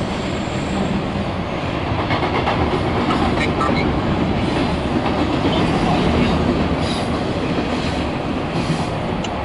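Norfolk Southern double-stack intermodal train cars rolling past on a girder bridge: steady noise of steel wheels on rail, a little louder in the middle.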